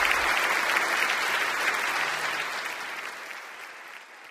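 Live audience applauding at the end of a song, the clapping fading out steadily over the last couple of seconds.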